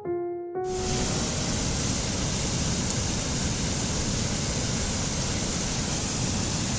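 Steady, even rush of a waterfall. The last few piano notes fade out in the first second.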